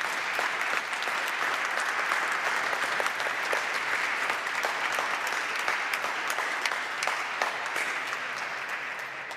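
Congregation applauding, a dense steady clapping that starts to die away near the end.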